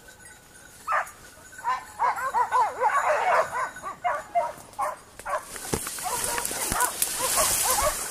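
A pack of basset griffon vendéen hounds giving tongue in chorus: many overlapping yelping bays, starting about a second in. This is the cry of hounds working a scent. From about halfway through there is also a rustling hiss of leaves and branches brushing past as someone pushes through the undergrowth, with a few low thumps.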